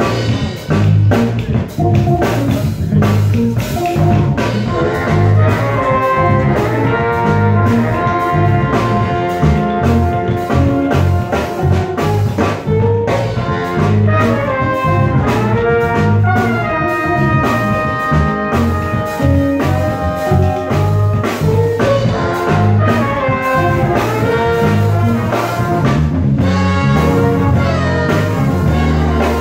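Live band playing, with a horn section of trumpets, trombone and baritone saxophone playing melody lines together over drum kit, bass guitar and hand drums. The horns come in about five seconds in.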